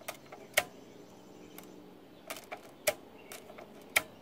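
Accumulator clearing crank of a Marchant XL pinwheel calculator being turned by hand, giving a handful of sharp metal clicks at uneven spacing, loudest about half a second in, near three seconds and near the end. The clearing mechanism only sort of works, while the rest of the machine is jammed.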